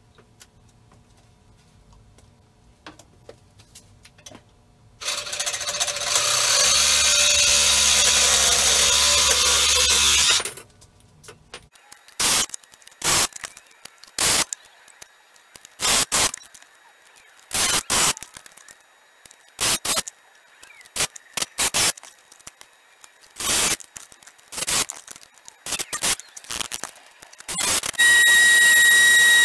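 Workshop power tools: a loud steady noise for about five seconds, then a handheld tool run in short bursts about every second or two. Near the end a grinder starts up with a steady high whine.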